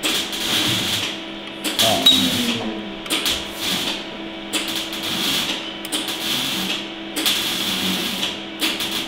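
A series of about seven short hissing bursts, each up to a second long, over a faint steady hum.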